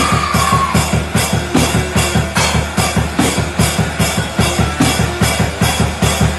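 Music driven by a fast, steady drum-kit beat, with a held high note fading out in the first second.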